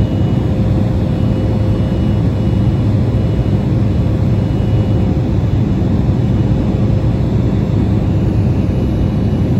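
Cabin noise of an Embraer E175 airliner in flight: a steady rumble from its wing-mounted General Electric CF34 turbofans and the airflow, with a steady whine on top.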